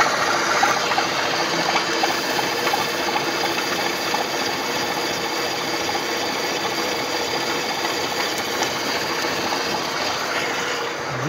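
Vertical milling machine cutting into a metal bushing with an end mill: steady machine noise of the spindle and its gearing, with several held tones over the sound of the cut.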